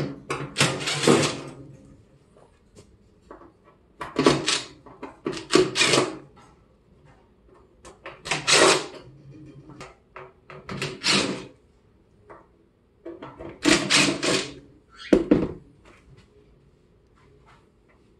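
DeWalt 20-volt cordless impact driver backing screws out of a microwave's sheet-metal back panel, in about seven short bursts spaced a second or two apart.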